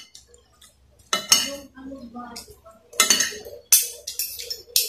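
Metal fork and spoon scraping and clinking against a glass plate: a cluster of sharp clinks about a second in, more around three seconds in, and another just before the end.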